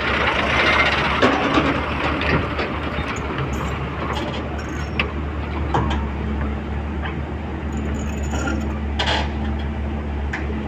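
Tata Hitachi crawler excavator's diesel engine running steadily while the machine is worked off a flatbed trailer, with a few short sharp knocks scattered through.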